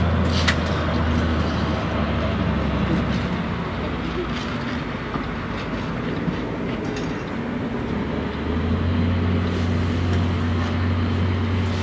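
Steady low rumble that eases off about two seconds in and comes back strongly near the end, with a few faint clicks at the start.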